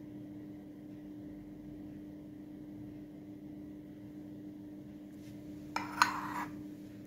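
Glazed ceramic butter dish handled on a stone counter: a brief scrape and one sharp clink of ceramic about six seconds in, over a steady low hum.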